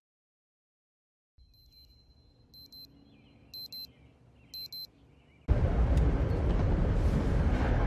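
Dead silence, then a faint high electronic tone with short beeps about once a second. At about five and a half seconds the loud, steady noise of a moving train carriage's interior sets in.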